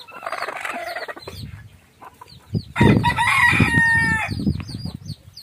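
A rooster crows once, starting about two and a half seconds in: a loud call of about a second and a half that holds steady, then drops at the end.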